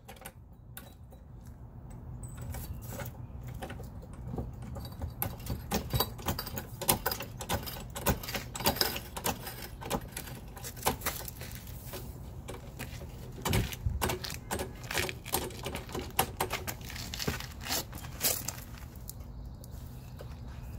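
Floor jack being hand-pumped to lift the car: a long run of quick, irregular metallic clicks and rattles over a faint steady low hum.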